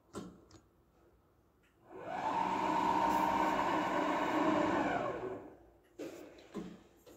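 The electric blade-height adjustment motor of an Altendorf F45 sliding table saw runs for about three seconds, raising the saw blade. It is a steady motor whine that comes up about two seconds in and winds down quickly near the end. A few button clicks come before and after it.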